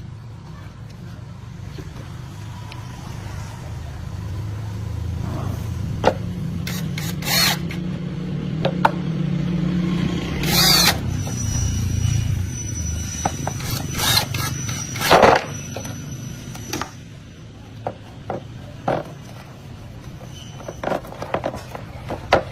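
Hand tools knocking and scraping on metal over a low rumble that builds toward the middle, with a run of sharp knocks, the loudest about two-thirds of the way in.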